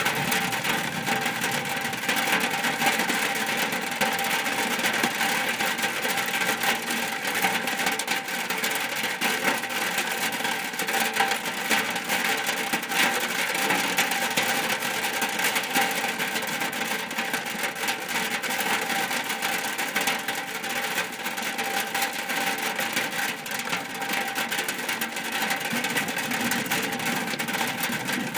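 Steady rain falling on a shack roof: a dense, even spatter of drops that keeps up without a break.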